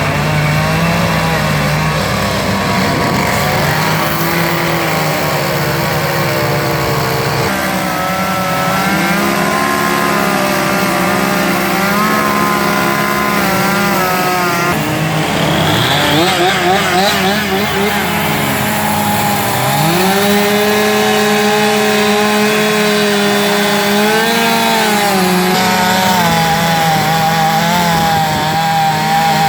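Several chainsaws running at once as they carve logs, their engines revving up and down at different pitches and overlapping.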